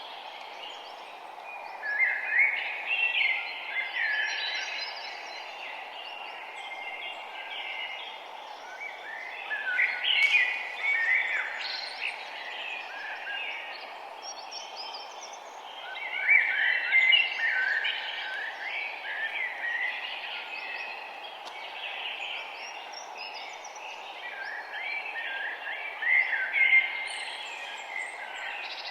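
Songbirds singing in chirping bouts of a few seconds, four times, over a steady background hiss.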